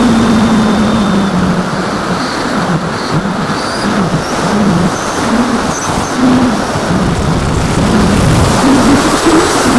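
Electric motor and propeller of an AXN foam FPV plane, heard from the onboard camera with wind rushing over the microphone. The motor's pitch wavers up and down repeatedly with throttle changes.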